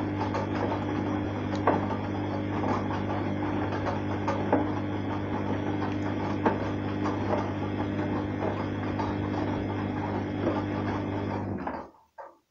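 Arçelik 3340 SJ front-loading washing machine in its wash cycle: the motor hums steadily as the drum tumbles wet, soapy clothes, with water sloshing and occasional light knocks. The drum motor stops suddenly near the end, a pause between turns.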